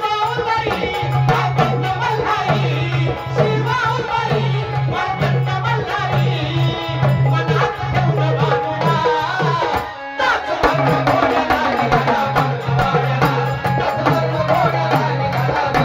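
Live Marathi folk music: hand drums of the tabla kind play a fast, dense rhythm under a wavering melody with a steady low held note. The music drops out briefly about ten seconds in, then picks up again.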